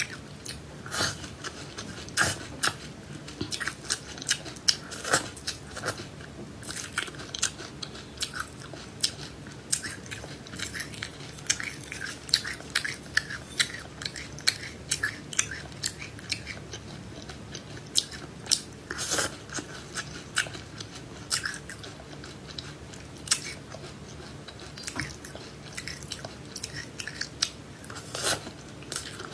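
Close-miked biting and chewing of crunchy food, with many sharp, irregular crunches.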